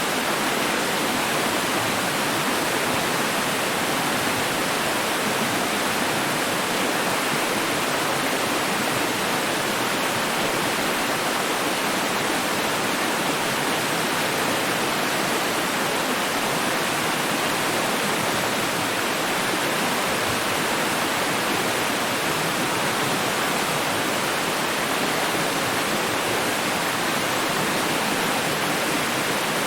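Steady, unbroken rush of running water, even in level throughout.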